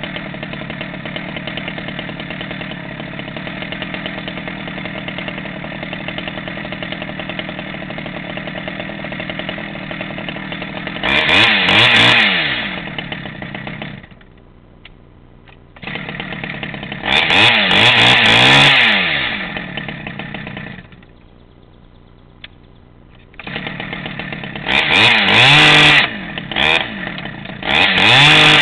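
Stihl 011 AVT two-stroke chainsaw idling steadily, then revved up several times in bursts of throttle, each rising in pitch and falling back. Twice the sound drops away to a low level for about two seconds before the idle returns, and near the end come a few quick revs in a row.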